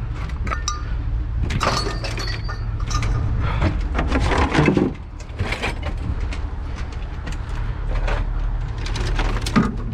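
Scrap clattering and crashing as it is thrown out of a pickup truck's bed: a run of irregular metallic bangs and clinks, over a steady low engine hum.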